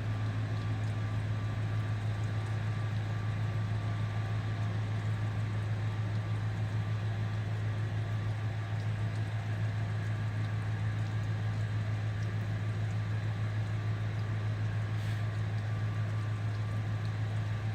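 A steady low mechanical hum with a faint hiss over it, unchanging in level.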